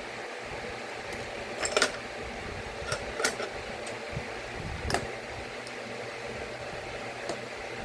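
Computer parts being handled while fitting an SSD: a handful of sharp clicks and light knocks, the loudest a double click a little under two seconds in, over a steady fan-like hum.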